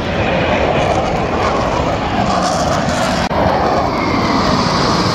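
KAI T-50B jets flying overhead, their turbofan engines making a loud, steady rushing roar. The sound breaks off for an instant a little over three seconds in, then carries on.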